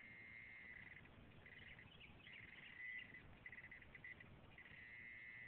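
Faint outdoor chorus of trilling animal calls, coming in phrases of about a second with short breaks, with a few higher chirps mixed in.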